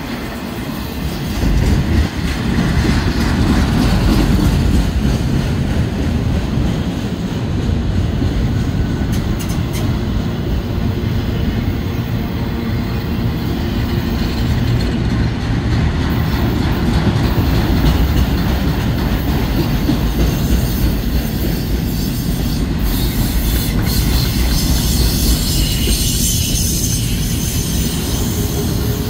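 Freight train of autorack cars rolling past, with a steady heavy rumble of steel wheels on the rails.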